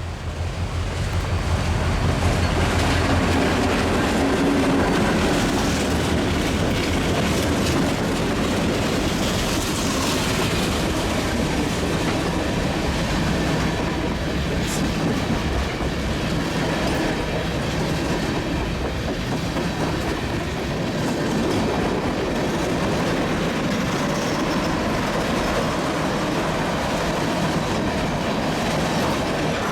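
Iowa Northern diesel freight train passing close by, its steel wheels rolling steadily over the rails. The sound swells over the first couple of seconds as the train comes alongside, then holds at an even level.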